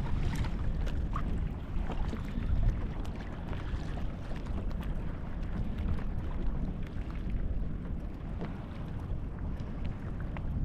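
Wind rumbling on the microphone out on open water, steady throughout, with faint scattered clicks over it.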